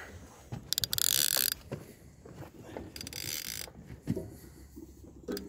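Fishing reel ratcheting in two short bursts of fast clicking, about a second in and again about three seconds in, with a big catfish on the line. A few faint knocks come in between.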